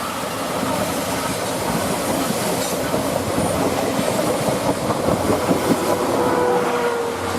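Passenger train of 12-series coaches rolling past, the wheels clattering steadily over the rail joints, loudest about two-thirds of the way in.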